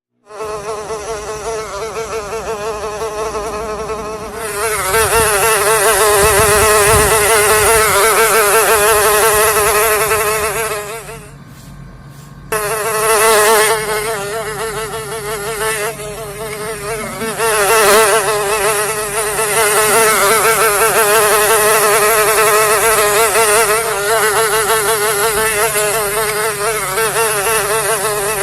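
Houseflies buzzing loudly in flight, the buzz wavering up and down in pitch. It fades for about a second near the middle, then cuts back in sharply.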